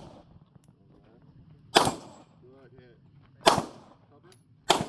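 Three handgun shots, spaced a little over a second apart, each cracking sharply with a short echo behind it; the last comes near the end.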